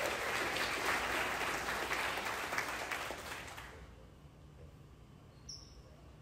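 Audience clapping, fading away about three and a half seconds in to a quiet room, with one brief high chirp near the end.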